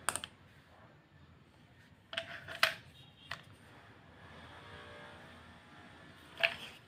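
Plastic clicks and knocks from handling a drill's auxiliary side handle: one click at the start, a cluster of knocks a little over two seconds in with another just after, and a single sharp knock near the end.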